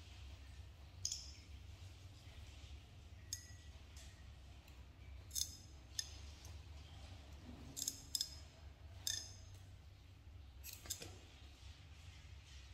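Metal nail clipper snipping a monkey's fingernails: about nine short, sharp clicks at irregular gaps, some in quick pairs.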